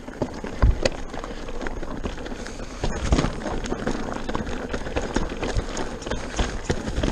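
Pivot Mach 429 Trail mountain bike descending rocky singletrack at speed: tyres rolling over stones and gravel, with frequent short knocks and rattles from the bike.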